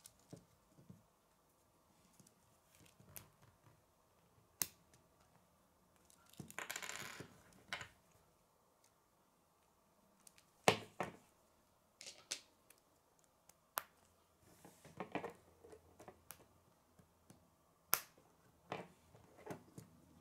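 K'nex plastic rods, connectors and wheels being handled and snapped together: scattered sharp plastic clicks and light rattling, with a longer rustle of pieces about a third of the way in.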